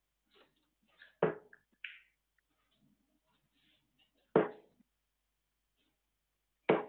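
Three steel-tip darts thudding one at a time into a Winmau Blade 5 bristle dartboard, about three seconds apart.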